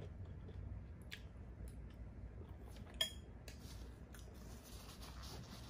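A metal fork is set down into a glass bowl, giving one short clink with a brief ring about three seconds in, amid a few fainter small clicks.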